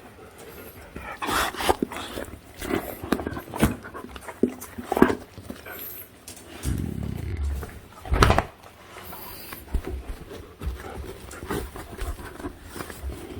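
Pungsan dogs vocalising in short, irregular sounds, with a longer low sound about seven seconds in and the loudest call just after it.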